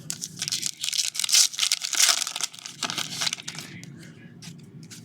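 Trading-card pack wrapper being torn open and crinkled: dense crackling for about three and a half seconds, then a few light ticks.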